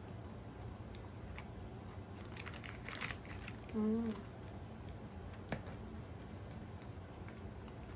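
Soft crinkling and crackling noises, a short hummed voice sound of under a second about four seconds in, and a single click a moment later.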